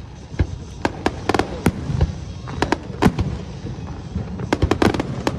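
Aerial fireworks bursting in an irregular volley of sharp bangs and crackles over a low rumble, with the densest run of bangs near the end.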